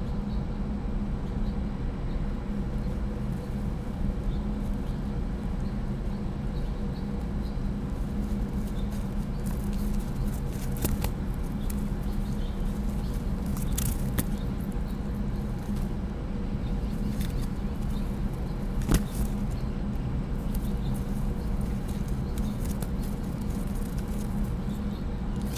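Steady low mechanical hum with a faint hiss, picked up by a falcon nest-ledge webcam's microphone. A few sharp taps come through it, about eleven, fourteen and nineteen seconds in, the last the loudest.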